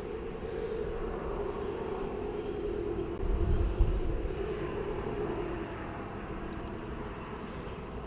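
Steady engine hum that eases off after about five and a half seconds, with a brief low thump about three and a half seconds in.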